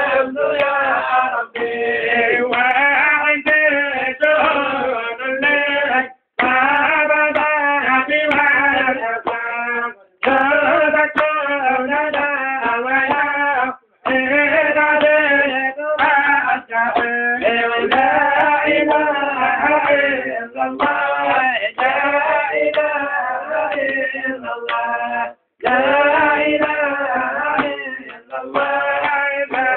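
Men singing a melodic chant in long sustained phrases, broken by a few short pauses for breath.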